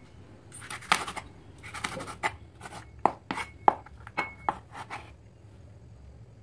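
Cleaver slicing elephant apple on a wooden cutting board: a run of sharp knocks as the blade cuts through the fruit onto the board, the loudest about three seconds in, with a brief metallic ring a little after four seconds. The knocking stops about five seconds in.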